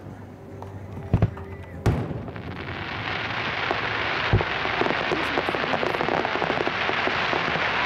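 Fireworks shells bursting: three sharp booms in the first two seconds and another about halfway through. From about two seconds in, a dense, rain-like crackle from the falling glittering trails builds and keeps going.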